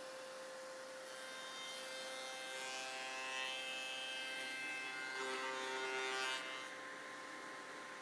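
Woodworking slotting machine with a power feeder running with a steady hum. Twice, around a third and three quarters of the way in, a louder cutting sound rises over it as a wooden piece is fed through to cut a slot, then it falls back to the hum.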